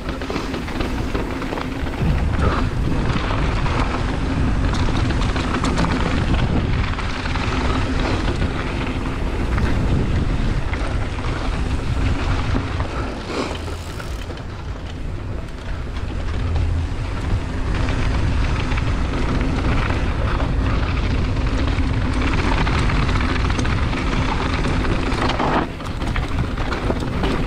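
Rush of wind buffeting the microphone, with the tyres rumbling on hard-packed dirt and the rattle and knocks of a downhill mountain bike descending at speed, over a faint steady hum.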